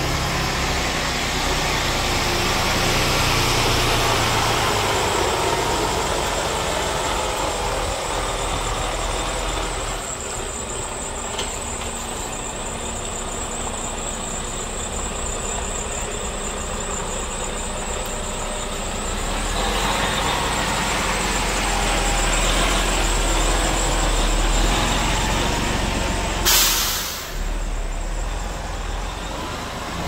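Mercedes Arocs 8x4 concrete mixer truck's diesel engine running steadily. Near the end comes one short, loud release of air from the truck's air system.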